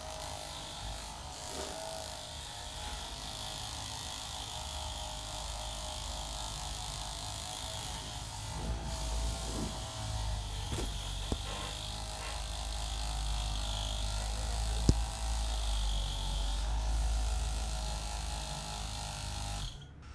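A small handheld electric motor buzzing steadily with a slightly wavering pitch, with a couple of sharp clicks partway through; it is switched off abruptly near the end.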